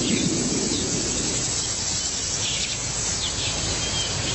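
Outdoor wildlife ambience: a steady hiss of insects with a few short, high bird calls scattered through it.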